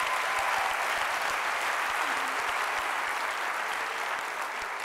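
Large audience applauding, the clapping slowly dying down.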